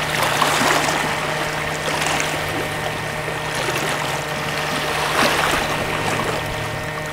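Sea water washing against the shore, swelling and easing every second or two, over a low steady hum.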